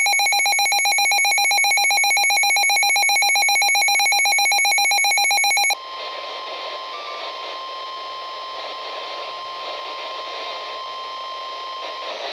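A weather alert radio's electronic alarm beeps loudly in a rapid, even pulse and cuts off suddenly about six seconds in. The broadcast audio follows: the steady NOAA Weather Radio warning alert tone over radio static, which stops near the end. Together they announce a severe thunderstorm or tornado warning.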